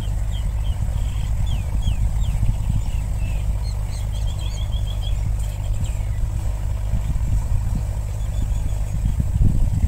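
A steady low engine rumble, with small birds chirping high above it, including a quick run of about six chirps about four seconds in.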